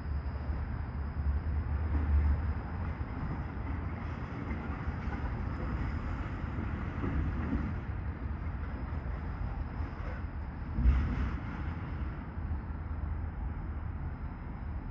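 Heavy demolition machinery rumbling steadily, with one louder crunch about eleven seconds in.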